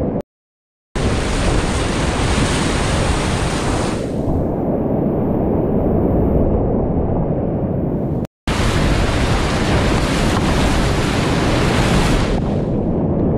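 Loud, steady rush of whitewater in a flooded river rapid, heard close up from a kayak running it, with water splashing around the boat. The sound cuts out abruptly twice, just after the start and about two-thirds of the way through.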